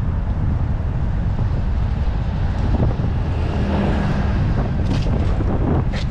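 Wind buffeting the microphone of a camera on a moving bicycle, a steady rumble mixed with road noise. Two sharp knocks come near the end, about a second apart.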